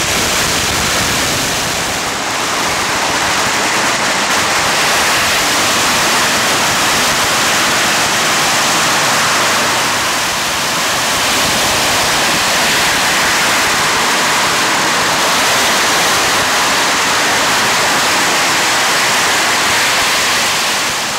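A long string of firecrackers laid out along the road going off in one dense, unbroken crackle of small explosions, loud and steady.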